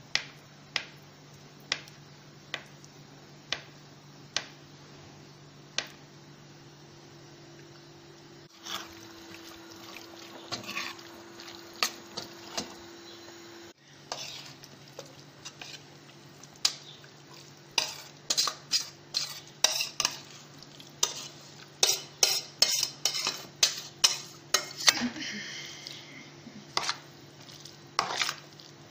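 A knife tapping on a plastic cutting board while dicing, a cut about every second at first. Later a spoon clicks and scrapes against a plastic bowl as the chopped filling is stirred, in quick, uneven strokes that are louder than the chopping.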